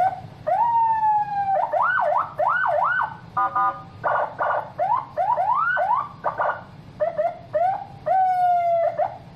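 Senken CJB100BD electronic siren sounded in short bursts, switching between its tones: a slow falling wail, fast rising-and-falling yelp sweeps, and a brief steady buzzing horn tone, with short gaps between bursts.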